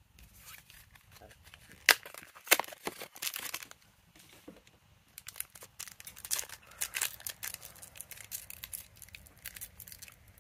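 Pokémon booster pack's foil wrapper being handled and torn open by hand: crinkling and crackling, with two loud sharp crackles about two seconds in, then dense crinkling through the second half.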